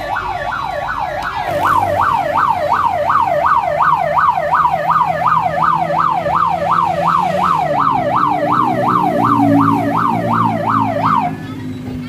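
Vehicle siren in fast yelp mode, wailing up and down about three times a second, cutting off suddenly near the end. A large bus engine runs underneath as the bus pulls up.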